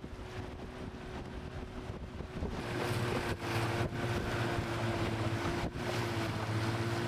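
Boat motor running steadily with an even hum, getting louder about three seconds in, with wind on the microphone.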